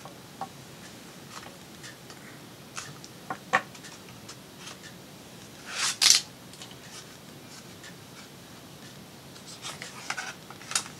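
Handling of a paper junk journal: scattered small clicks and taps as binder clips come off, then the pages are lifted and flipped, with one louder paper swish about six seconds in and a few more clicks near the end.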